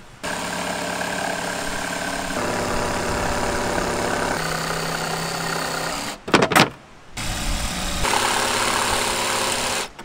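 Cordless power tools cutting into a plywood panel: a drill boring a starter hole, then a jigsaw sawing out an opening. The motor runs steadily, shifting pitch a few times, and is broken a little past six seconds by a few loud knocks.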